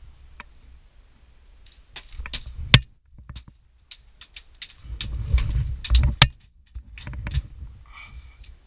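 Handling and movement noise from an airsoft player's gear: irregular sharp clicks, knocks and rattles over low rumbling, in several clusters.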